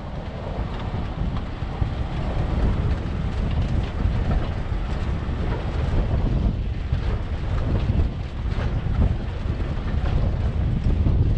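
4x4 vehicle driving on a dirt trail: a steady low rumble of engine and tyres, with wind buffeting the microphone and a few faint knocks.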